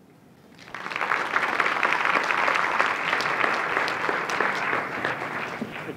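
Audience applauding, starting about a second in and thinning out near the end.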